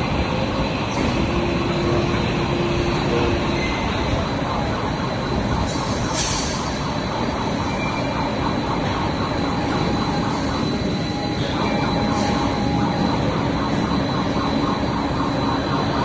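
Steady factory din of a running steel coil colour coating line: a constant rumble and hiss of machinery with a few faint steady hums, and a short burst of high hiss about six seconds in.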